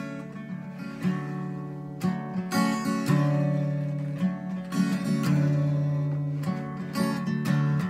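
Cutaway acoustic guitar strummed, chords struck every half second to a second and left to ring between strokes.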